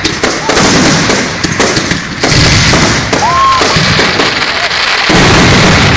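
Aerial fireworks shells bursting in a loud, dense barrage: many bangs and crackles run together with no break between them.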